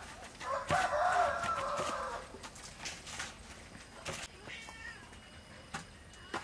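A drawn-out animal call, about a second and a half long, near the start, with light clicks and rustling from breadcrumbs being pressed around vegetable fritters by gloved hands.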